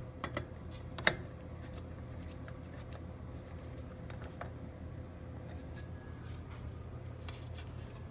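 Metal and glass parts of a ceiling fan light kit clicking and clinking as they are handled and screwed back together. There is a sharp click about a second in and a few fainter ones later, over a steady low hum.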